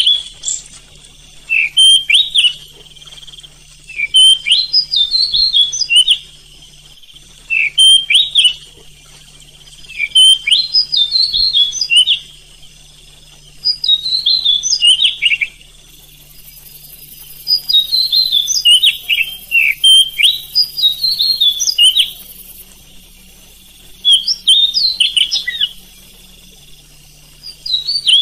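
Oriental magpie-robin singing: loud, varied whistled phrases in bursts about every two seconds, with short pauses between.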